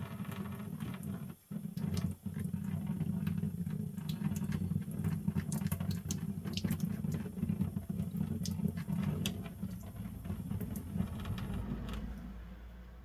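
A needle file being brushed off after weeks in a molasses bath, a steady scrubbing and scratching with small clicks, as the loosened rust and residue come away. The scrubbing stops about twelve seconds in.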